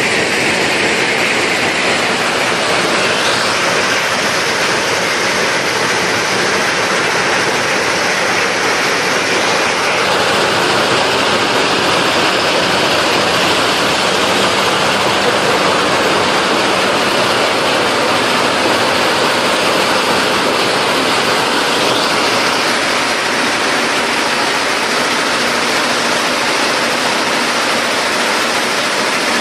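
Jaw-crusher stone-crushing plant running: a loud, steady, dense noise of machinery and rock with a faint low hum underneath.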